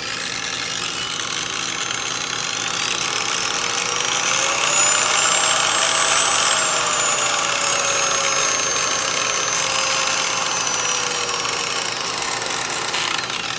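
VViViD REV 6-inch random orbital polisher running free, not on a surface. Its motor whine rises in pitch over the first six seconds, eases back down, and winds down near the end. It is impressively quiet, with a little bearing noise.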